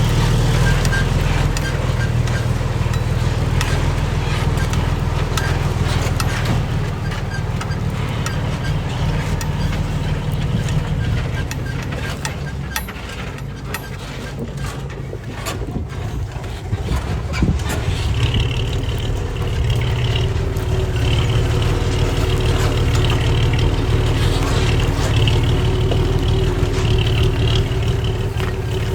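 Heavy diesel construction machinery engine running under load, easing off about halfway through and picking up again, with a high whine joining in during the last third.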